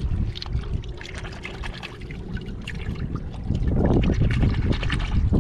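Shallow seawater splashing and trickling, with many small sharp ticks scattered through it. Wind buffets the microphone in a low rumble that grows heavier in the last couple of seconds.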